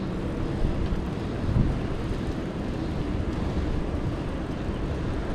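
Steady low rumble of wind and street traffic noise picked up while riding a bicycle down a city street.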